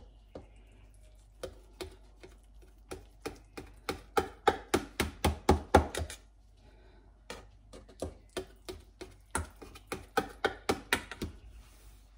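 Kitchen knife cutting a layered flatbread gratin in a stainless steel pan: a quick series of sharp taps as the blade knocks through to the pan, with a short pause about halfway.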